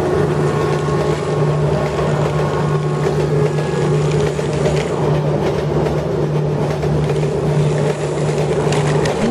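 Motorized plastic toy steam locomotive running around its plastic track pulling loaded flatcars, its small motor and gears whirring with a steady hum.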